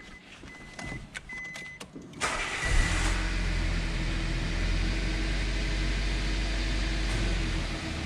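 A few short high beeps, then a small car engine cranked by the starter, catching about two seconds in and settling into a steady idle. Near the end the idle note shifts as the air-conditioning compressor engages.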